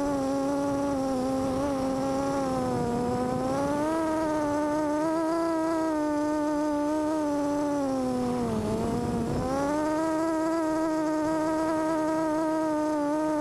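FPV quadcopter's brushless motors and propellers whining, the pitch wavering up and down with the throttle. About eight and a half seconds in the pitch dips sharply, with a brief low rumble, then climbs back within a second.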